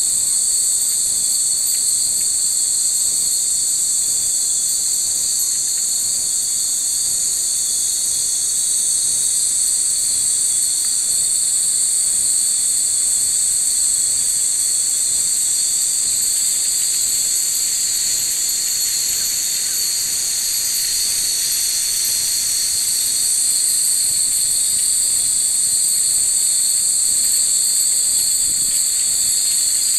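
Steady, high-pitched chorus of summer-evening insects, an unbroken shrill trilling that holds level throughout.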